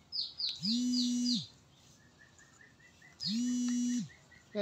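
A woman's closed-mouth "mmm" of enjoyment while eating, held at one steady pitch for under a second, twice. A bird gives a quick run of five falling chirps near the start, and faint chirps repeat about four times a second between the hums.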